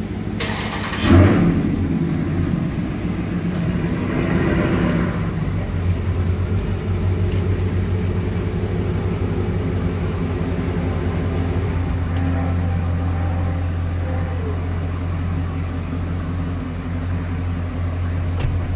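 Dodge Challenger widebody's V8 starting with a loud flare about a second in and revving briefly around four seconds. It then settles into a steady, deep idle as the car creeps forward.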